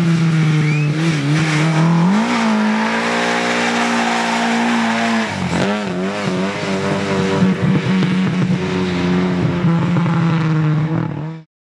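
Rally car engine running hard under load, its pitch climbing about two seconds in, holding high, then dropping about five seconds in before settling lower. The sound cuts off abruptly near the end.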